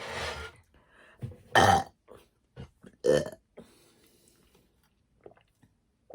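A woman burping on purpose: a breathy burp at the start, then two loud burps about a second and a half apart, with small mouth clicks between them.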